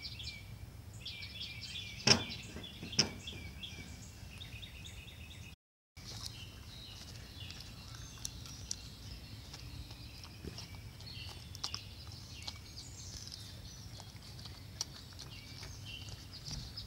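Birds chirping in the background, with two sharp clicks about two and three seconds in. After a brief gap of silence, a small dog chews a slice of raw potato, with faint scattered crunching clicks.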